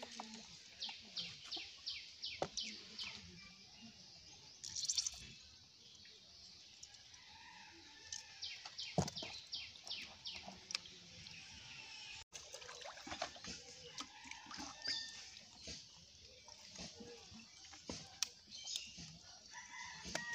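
Chickens clucking, with a quick run of high, evenly spaced chirps in the first few seconds and scattered sharp knocks.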